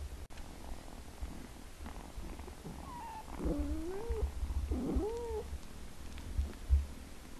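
Cat purring, a low pulsing rumble, with two short gliding meows about three and a half and five seconds in, and a soft low thump near the end.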